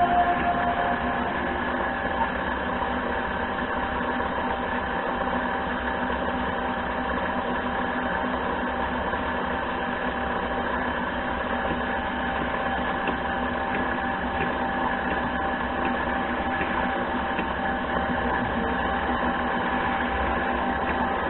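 Mini lathe running at a steady speed, its motor and gearing giving a constant hum with a few held tones.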